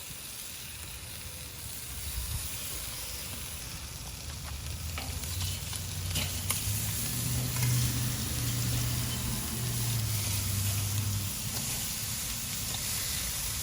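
Sauce-coated chicken thighs sizzling on a grill grate over hot charcoal as the skin chars, the sizzle growing louder partway through. A low hum sounds underneath for several seconds in the middle.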